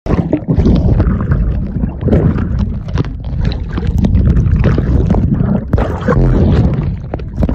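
Wind buffeting the phone's microphone as a loud, continuous low rumble, over the wash of ocean surf.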